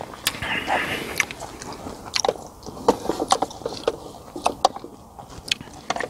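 A person chewing and biting food close to the microphone, with irregular crisp clicks and crunches.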